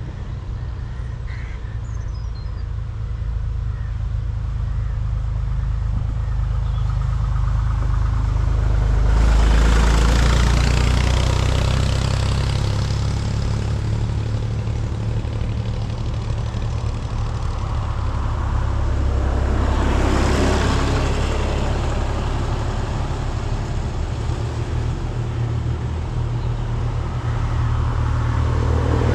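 Tractor engines running, a steady low rumble that swells loudly twice, about nine and twenty seconds in, and builds again near the end as another tractor approaches.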